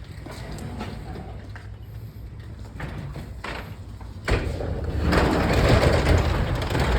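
Wheelbarrow knocking and scraping against a doorway too narrow for it: scattered knocks, then about four seconds in a sudden louder rumbling scrape and clatter.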